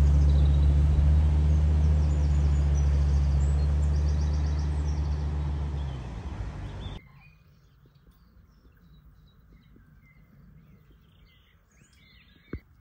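Land Rover Discovery engine running with a steady low drone as the 4x4 drives out of flood water, fading about six seconds in and cutting off abruptly a second later. Faint birdsong follows.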